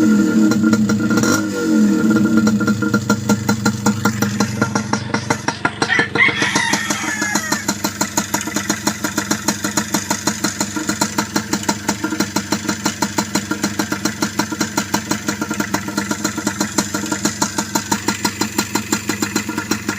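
Yamaha DT125's single-cylinder two-stroke engine blipped up in revs, then dropping back and settling into a steady, pulsing idle of several beats a second.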